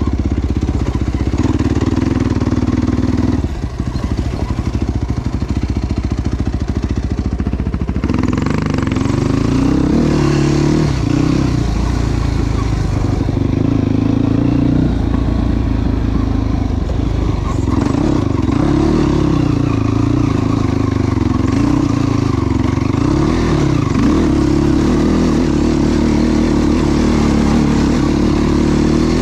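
Yamaha YFZ450 sport ATV's single-cylinder four-stroke engine running loud as it is ridden, its pitch rising and falling over and over as the throttle is opened and closed.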